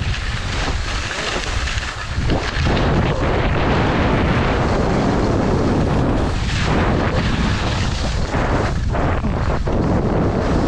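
Heavy wind buffeting the microphone of a camera carried by a fast-moving skier: a dense, deep rushing rumble that grows louder about two and a half seconds in.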